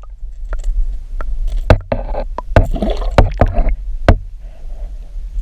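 Scattered sharp knocks and thumps aboard a small boat, about six in a few seconds, with rustling handling noise in the middle, over a steady low rumble.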